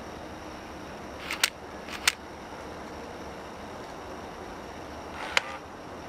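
A few short, sharp clicks, the first two about a second apart and one more near the end, over a steady low background hiss.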